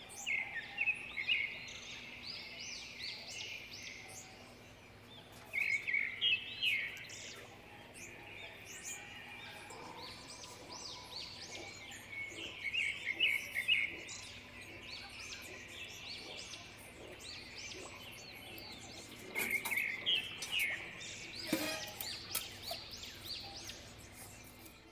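Small birds chirping in repeated bursts of quick high chirps, each burst a few seconds long with pauses between. A few light knocks sound near the end.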